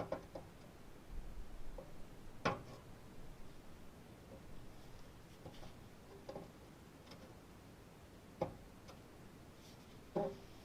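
Scattered light clicks and knocks of tools and sheet copper being handled during layout work, with a few sharper knocks standing out.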